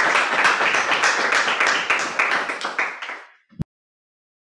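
Audience applauding, a dense patter of many hands that dies away about three seconds in. A brief low thump follows, then the sound cuts to dead silence.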